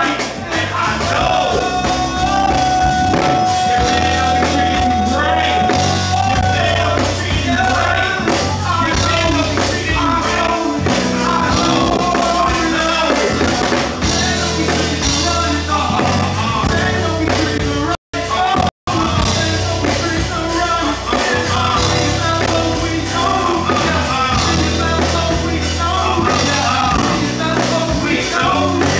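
Live band music with vocals: a steady bass line with keyboards and drums under a singer. The sound cuts out twice very briefly about two-thirds of the way through.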